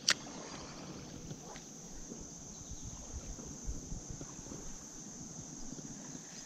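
Steady high-pitched insect chorus, with a single sharp click right at the start and faint low rustling and knocks underneath.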